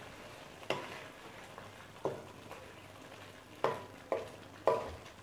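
Spatula stirring in a metal pan of simmering coconut-milk sauce: five sharp ringing knocks of the spatula against the pan over a faint steady bubbling hiss.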